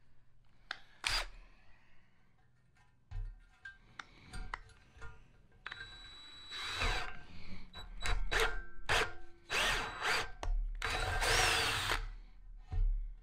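DeWalt 18V cordless drill boring a small pilot hole through a metal light bar: a few short clicks at first, then from about six seconds in the motor whines and the bit cuts in several bursts.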